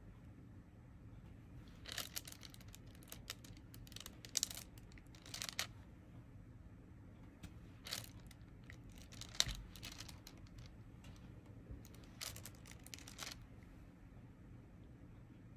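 Diamond painting: scattered faint clicks and crinkly rustles as a drill pen picks up resin drills and presses them onto the adhesive canvas, with a sharper tap about nine and a half seconds in.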